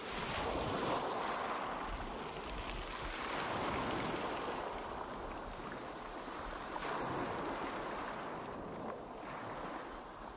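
Small waves breaking and washing up a rocky shore: a steady surf hiss that swells and eases every few seconds.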